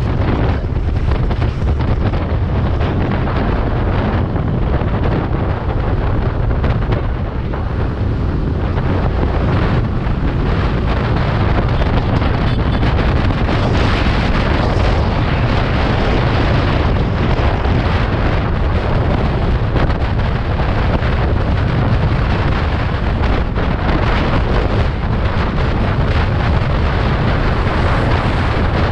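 Wind buffeting the microphone of a Suzuki scooter riding at highway speed, about 60 to 90 km/h, over a steady low rumble of road and engine noise.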